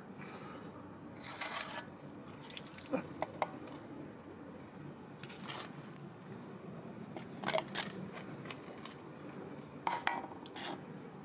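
A small plastic water bowl being handled on a tricycle's footboard: scattered light knocks and drips of water, a few sharper clicks among them.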